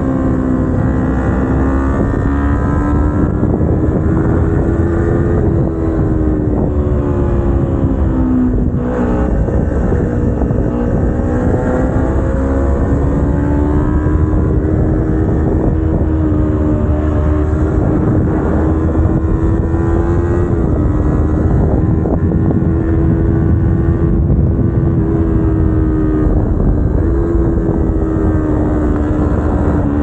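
Kawasaki Ninja 250R's parallel-twin engine pulling through a series of bends, its note rising and falling gently with the throttle. About nine seconds in there is a short dip in pitch before it climbs again.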